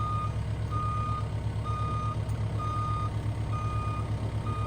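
Excavator engine running with a steady low throb while its travel alarm beeps about once a second, a single high tone each time, as the machine moves.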